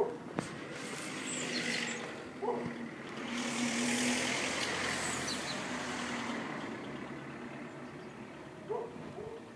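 A car passing by on the road: its engine and tyre noise swell to a peak about four seconds in, then fade away.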